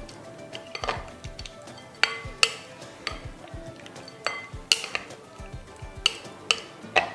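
A spatula stirring shrimp in a liquid marinade in a glass mixing bowl, knocking against the glass in irregular sharp clinks, about one or two a second, each with a brief ring.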